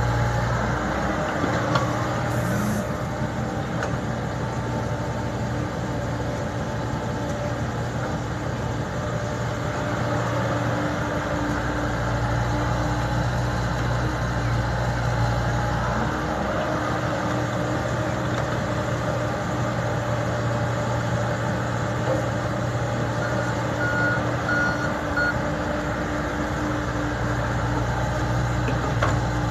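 Komatsu PC70 excavator's diesel engine running steadily, its pitch and load shifting as it works the hydraulics. Near the end a few short beeps of a warning alarm sound.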